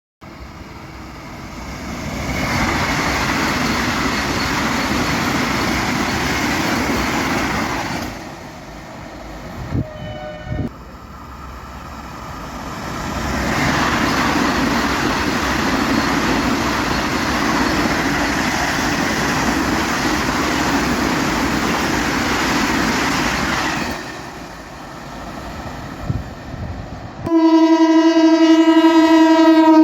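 Express trains passing at speed, two long stretches of steady rushing and rail clatter with quieter gaps between. Near the end a loud train horn sounds one long, steady chord.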